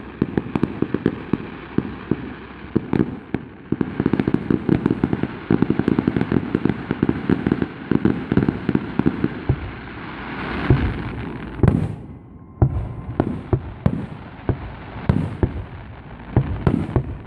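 Fireworks going off: dense, rapid crackling pops for about ten seconds, then a swelling hiss, a loud bang and scattered single booms.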